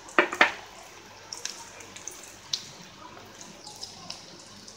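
Chopped onions and green chillies frying in oil in a steel kadai: a low steady sizzle with scattered small pops and crackles. Two sharp knocks come close together near the start.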